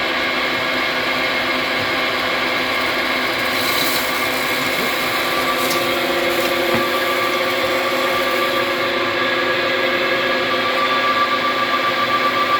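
1962 Dean Smith and Grace 13x42 three-phase lathe running at a steady speed, its geared headstock giving an even whine of several tones. A few brief clicks come about four to six seconds in.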